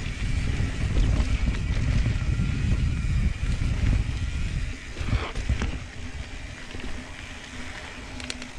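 Wind buffeting the camera microphone and rumble from a Santa Cruz Tallboy mountain bike's tyres rolling over the trail. It is loudest for about the first five seconds, then eases. A few sharp knocks and rattles come about five seconds in and again near the end.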